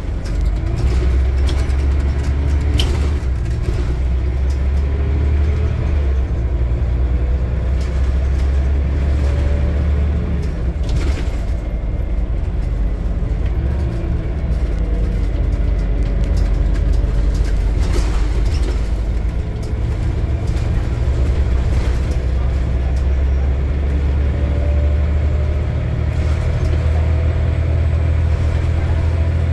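Scania single-deck bus under way, heard from inside the passenger cabin: a deep diesel drone with a whine that rises several times as the bus pulls up through its gears, and a few short knocks from the body.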